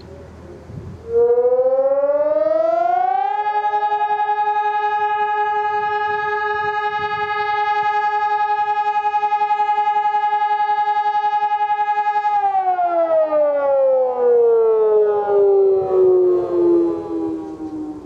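Sonnenburg SES 500 electronic siren sounding one blast of a fire alarm. Its tone rises for about two seconds, holds steady for about nine seconds, then slides down and fades away near the end. The tone has a marked flutter, unusually pronounced for this siren model.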